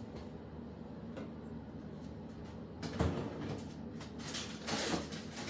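A door knocks shut about three seconds in, followed by a few softer knocks and rustles of handling a second later.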